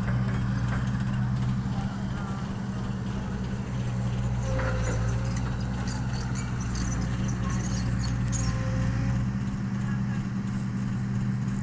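Diesel engine of heavy earthmoving equipment running steadily at a constant speed, with some light clicking and rattling in the middle.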